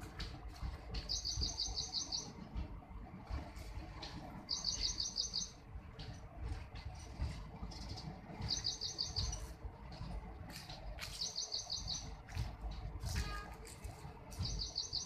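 Passing train of goods-type coaches: a continuous low rumble of wheels on rail with scattered clicks. Over it a bird repeats a short, fast, high trill of chirps about a second long, five times, every three to four seconds.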